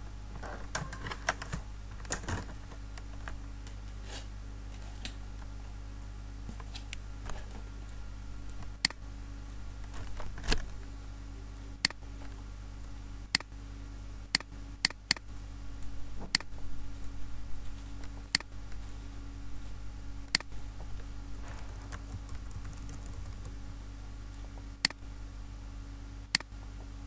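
Computer mouse and keyboard clicks: a quick run of clicking in the first couple of seconds, then about a dozen single sharp clicks spaced a second or more apart, over a steady low hum.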